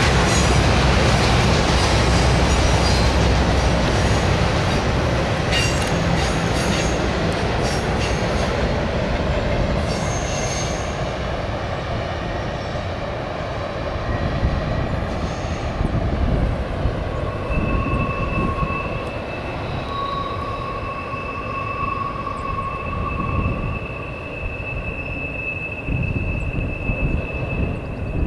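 Empty autorack freight cars rolling past on a curve, the steady wheel-and-car noise fading as the train moves away. From a little past halfway, the wheels set up a steady high squeal in two pitches as the last cars work through the curve.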